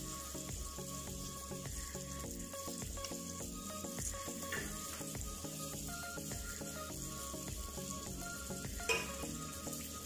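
Mahamri dough triangles deep-frying in hot oil in a metal pot: a steady sizzle, with one sharp clink about nine seconds in as a metal spoon touches the pot to turn them.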